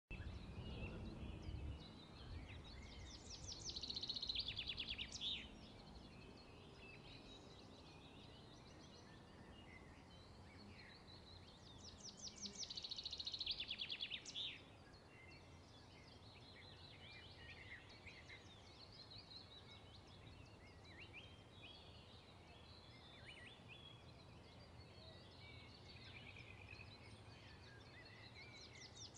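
Songbirds singing: one bird gives a fast, high trill of rapidly repeated notes twice, about three seconds in and again around twelve seconds, with scattered fainter chirps between.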